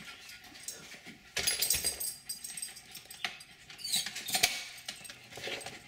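Rustling and knocking of a plastic pet crate as a Jack Russell terrier is loaded into it: a burst of rustling about a second and a half in, then a few sharp clicks.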